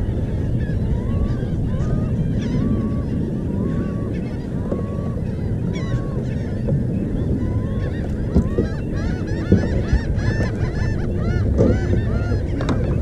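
Birds calling with short honking calls that rise and fall in pitch. At first about one call a second, then many overlapping calls from about eight seconds in, over a steady low rumble.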